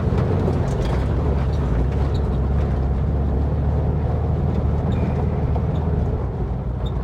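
1958 Volkswagen Bus engine running steadily while the bus drives over a rough dirt trail, with scattered light knocks and rattles.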